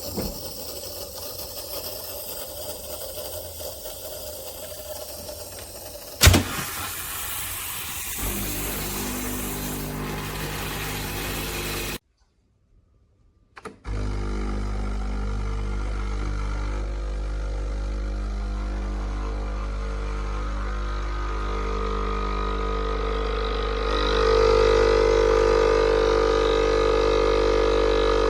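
Sage Barista Express espresso machine running, a steady mechanical hum typical of its vibratory pump. A sharp click comes about six seconds in, and the hum grows louder near the end.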